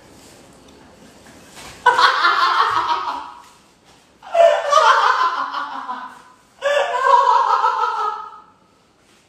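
A man laughing hard in three loud bursts, each lasting one to two seconds.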